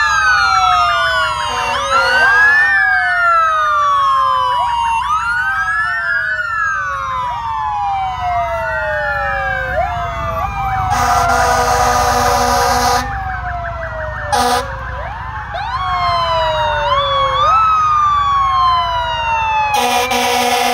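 Several police-car and fire-engine sirens wailing at once, out of step with one another, each rising quickly and then falling over a couple of seconds. A fire-truck air horn blasts for about two seconds midway, gives a short blip a little later, and blasts again near the end.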